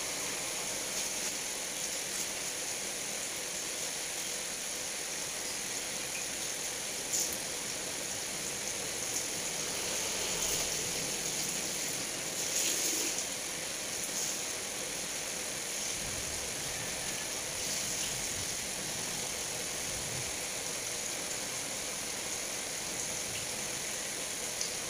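Steady background hiss, with a few faint brief rustles partway through.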